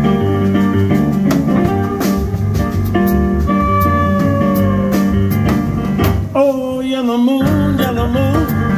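Live blues band playing: electric guitar, drum kit, upright bass and stage piano. The bass and drums drop out for about a second past the middle while a single line bends in pitch, then the full band comes back in.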